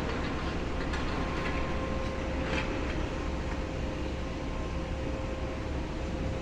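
Distant demolition machinery running steadily: a constant engine drone with a steady whine, under low wind rumble on the microphone.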